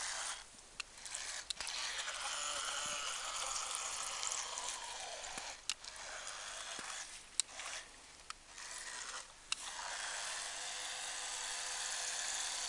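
Radio-controlled model boat's small electric motor whining as it runs across the water, its pitch sinking over a few seconds, then cutting out and picking up again several times.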